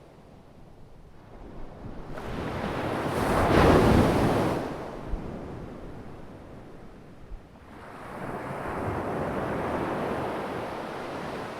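Ocean waves breaking and washing up: one wave swells about two seconds in, peaks and fades, then a second, softer wave rises and washes out near the end.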